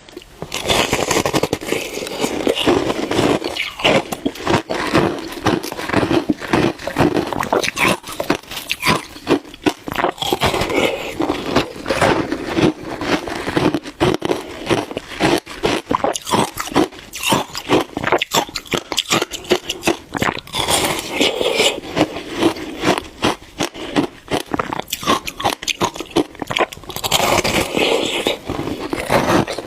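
Shaved ice being bitten and chewed close to the microphone, a dense, continuous stream of crisp crunches.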